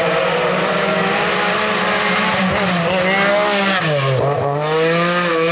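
A Group B rally car's engine held at high revs, flat out. The revs drop briefly about four seconds in, then climb back.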